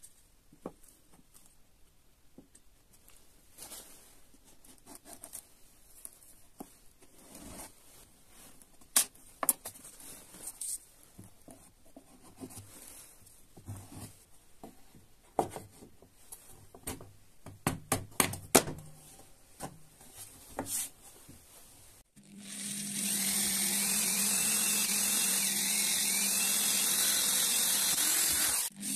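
Scattered light knocks and clicks of wooden pieces being handled and pressed together into a glued half-lap joint. About 22 seconds in, an electric drill starts and runs steadily with a humming whine while its twist bit bores into the wood, throwing out shavings.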